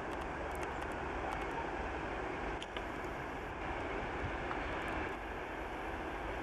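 TEP70 diesel locomotive's V16 diesel engine running steadily as it approaches, hauling a passenger train, with a low hum under the engine noise.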